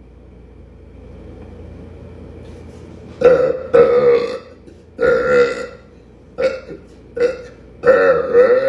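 A woman burping loudly: a run of about six pitched burps starting about three seconds in, some short and some nearly a second long.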